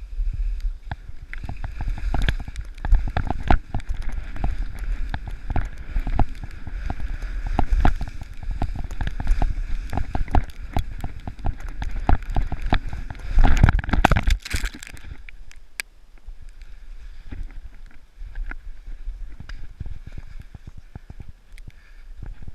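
Riding down a snowy slope through trees: wind rumbling on the microphone with many rapid knocks and scrapes of the skis or board on the snow, loudest about 14 seconds in, then quieter for the last several seconds.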